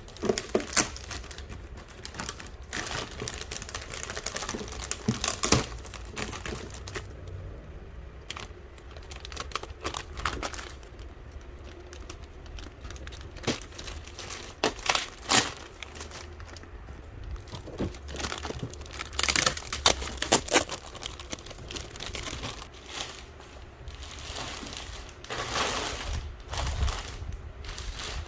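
Packaging being handled during unboxing: irregular crinkling and rustling, with scattered clicks and knocks.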